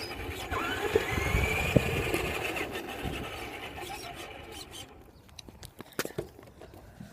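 RC car's motor whining and rising in pitch as it accelerates, with the rushing sound of its drive and tyres, then fading away over a few seconds. A few sharp clicks near the end.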